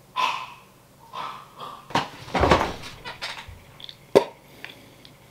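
A person breathing hard and gagging in a series of short, noisy bursts after a foul-tasting Bean Boozled jelly bean, with a sharp click about four seconds in.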